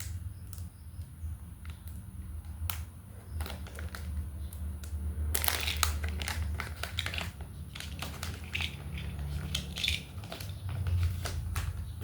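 Hands opening a small freebie package, its wrapping crinkling and crackling in irregular bursts, with the busiest handling about five to six seconds in. A steady low hum runs underneath.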